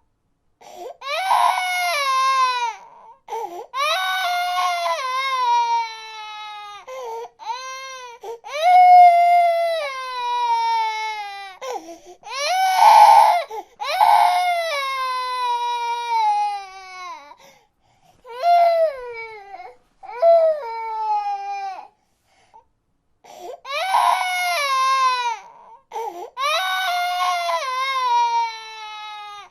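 A baby crying in long wails, each starting high and falling in pitch, broken by short gasps for breath, with a pause of a few seconds about two-thirds of the way through before the crying resumes.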